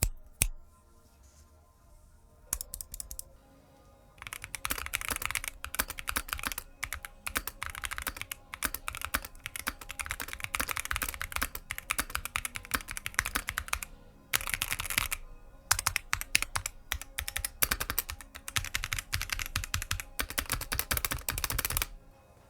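Fast typing on a mechanical keyboard: a dense, rapid stream of key clacks that starts about four seconds in, after a few single key presses and a short flurry, with a couple of brief pauses and a stop near the end.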